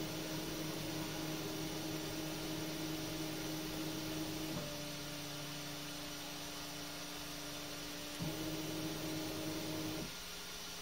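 Flashforge Adventurer 5M Pro 3D printer's motors running through its first calibration, a steady whining hum. It drops a little in pitch about halfway through, goes back up a few seconds later, and stops shortly before the end, leaving a fainter steady hum.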